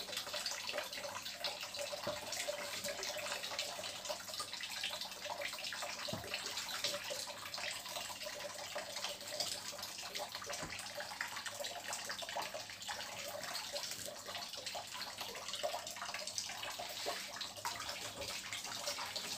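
Kitchen faucet running steadily, its water splashing over a wet cat's fur into a stainless-steel sink as the cat is rinsed.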